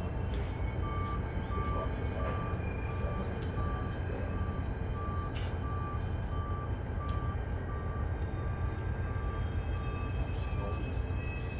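Steady low rumble of idling Union Pacific diesel locomotives in the yard's service area, with a short electronic beep repeating evenly about one and a half times a second.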